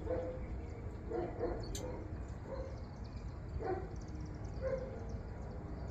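A dog whimpering in several short calls, one dropping in pitch, over a steady low hum, with a single click about two seconds in.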